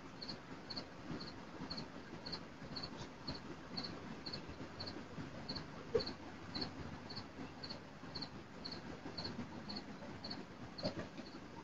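Faint, evenly spaced high-pitched chirps, about three a second, over a low steady hiss.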